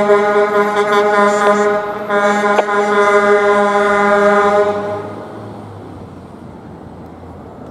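A fire department emergency vehicle's horn sounding one long steady blast, briefly broken about two seconds in, that cuts off about five seconds in. A low traffic rumble follows.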